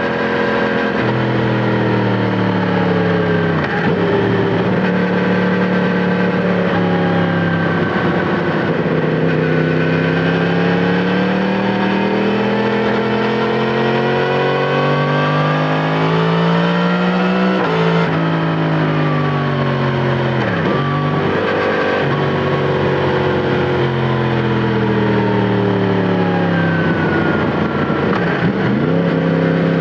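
Yamaha MT-10 SP's crossplane inline-four engine running through an Akrapovic titanium slip-on exhaust while riding, heard onboard. The revs rise and fall with the throttle: a long steady climb in pitch ends in a sudden drop a little past halfway through, and there are several brief dips.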